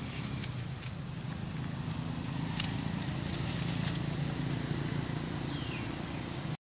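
Quiet outdoor background noise: a steady low rumble with a few faint scattered ticks, cutting off suddenly at the very end.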